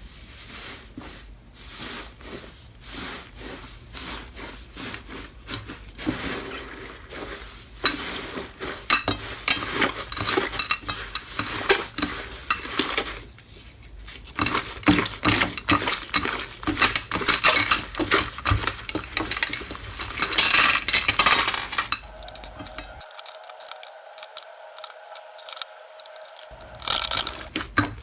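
Slime being squished, pressed and poked by hand: a dense, irregular run of small sticky clicks and crackles. The sound changes character about three-quarters of the way through, then the clicking picks up again near the end.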